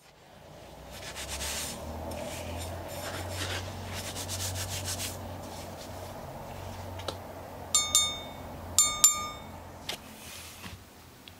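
Gloved hands rubbing and working through gritty material in a plastic bucket, a grainy scraping over a low steady hum. Near the end come two sharp metallic rings about a second apart.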